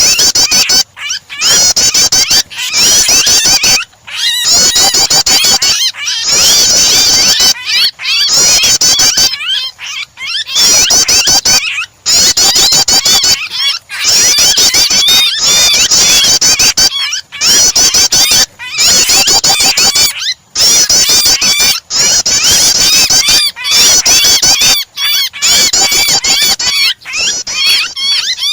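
Layered recording of prenjak (prinia) song mixed with the shrill distress cries of a pinched bird, the kind of starter track played to provoke caged songbirds into singing. The chirping is loud, dense and rapid, in phrases a second or two long broken by short gaps.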